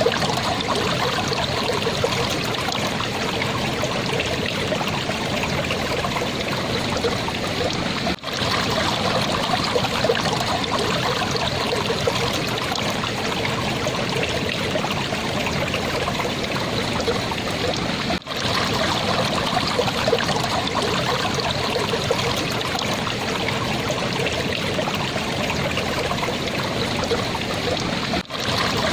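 Clear water flowing and babbling steadily in a stream, with a brief dip in the sound about every ten seconds.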